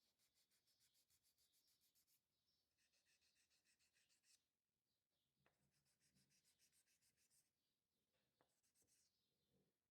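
Very faint, quick back-and-forth rubbing strokes, about seven a second in runs of a second or two with short pauses, and a couple of light clicks: hand sanding and polishing of resin knife-handle scales.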